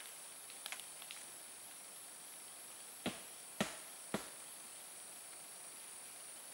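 Three sharp knocks about half a second apart, a little past the middle: a tree trunk being kicked to shake beetles down from the sap, with none falling. A steady high-pitched insect chorus runs underneath.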